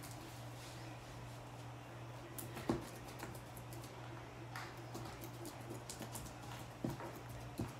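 Slime being kneaded and pressed against a wooden tabletop: soft sticky clicks and squishes, with a few sharper ticks, over a steady low hum.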